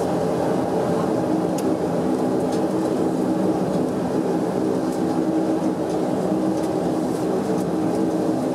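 Steady drone of a Bombardier Dash 8-400's Pratt & Whitney PW150A turboprops and six-bladed propellers heard inside the cabin, a hum of several steady tones at taxi power.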